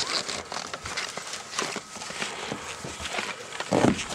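Footsteps crunching through snow, an uneven run of short crunches, with a louder rush of noise near the end.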